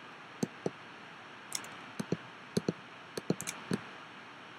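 About a dozen light clicks of a computer pointing device's button, several coming in quick pairs, as images are selected and dragged on screen. A steady faint hiss lies underneath.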